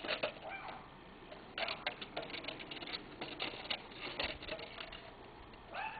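Irregular clicks and clatter of an empty plastic yogurt container being batted and mouthed by a puppy, coming in quick clusters.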